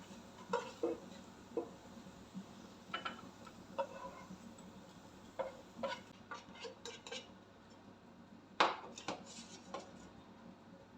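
A kitchen utensil clinking and scraping against a non-stick pan and a bowl as fried garlic chips are transferred: irregular light knocks and clinks, a quick cluster of them past the middle and the loudest knock about eight and a half seconds in.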